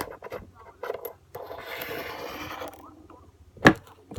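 Small hard parts handled: a few light clicks, a scrape lasting about a second and a half, then one sharp click near the end.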